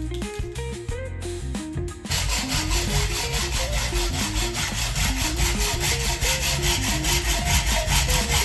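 Background music with a melodic line; about two seconds in, a steady, evenly paced raspy shaker- or hi-hat-like beat and heavier bass come in.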